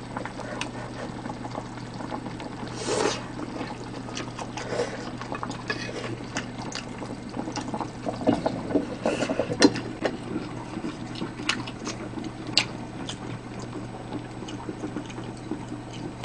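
Stainless steel pot of pork simmering on the burner, the liquid bubbling, with scattered clinks and knocks of metal tongs and the pot lid. The louder knocks come about three seconds in and again around the middle.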